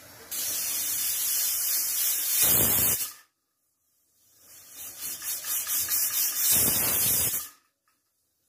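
Prestige Deluxe pressure cooker whistling twice: steam hisses out loudly under the weight valve, each whistle building for a few seconds and then cutting off suddenly. The whistles show that the cooker has reached full pressure.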